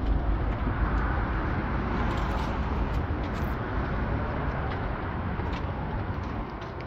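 Steady outdoor noise with a heavy low rumble and a few faint ticks.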